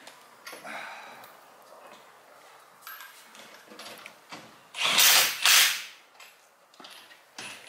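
A power tool works a nut in one loud burst of about a second, in two surges, about five seconds in. Lighter clicks and rattles of tools come before it.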